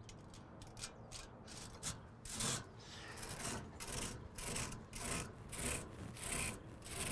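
A universal fin tool's metal comb scraping through the thin aluminium fins of an air-conditioner condenser coil, combing bent fins straight. Quick short strokes at first, then from about two seconds in longer, louder up-and-down strokes, about three every two seconds.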